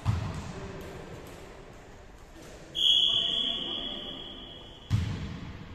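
A referee's whistle blows one blast about three seconds in, held for about two seconds and ringing in the sports hall; it is the loudest sound. Low thuds of a volleyball striking the wooden floor come at the start and again just before the end.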